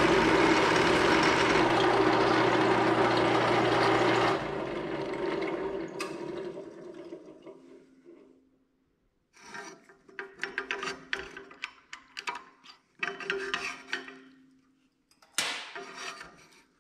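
Drill press running as a final-size twist bit cuts through a metal bar, a steady motor hum under the cutting noise; the motor is switched off about four seconds in and spins down. Then scattered clinks and scrapes of metal being handled, and a single sharp clank near the end.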